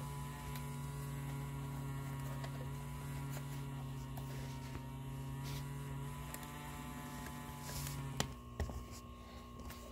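A steady low electric hum: the motor of a Dirt Devil Featherlite bagged upright vacuum running just after being switched on. It stops about eight seconds in, followed by a few faint clicks.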